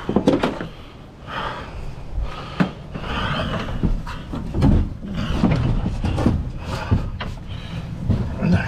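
Irregular knocks, clatter and short scrapes of scrap being worked loose and cut off by hand, over a low wind rumble on the microphone.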